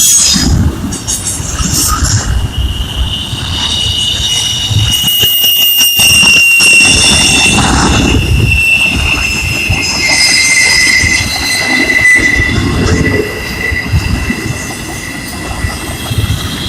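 Passing train's steel wheels squealing against the rails in high, drawn-out tones that slide slowly lower, over a steady rumble of wheels on track.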